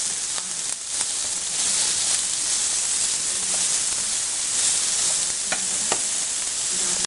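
Sliced onions and vegetable strips sizzling steadily in a frying pan as they are turned with tongs, with a few short clicks of the tongs against the pan.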